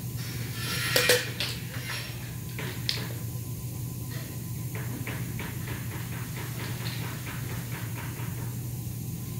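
Hand tools knocking and clicking against an aluminium window frame: a loud metallic clatter about a second in, then a string of light taps and clicks, over a steady low workshop hum.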